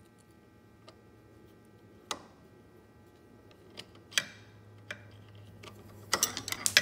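A flathead screwdriver clicking against the metal fill screw of an outboard's tilt/trim reservoir as the screw is turned out, a few sharp clicks a second or so apart. Near the end comes a quick rattle of louder metallic taps as the loosened screw falls and bounces.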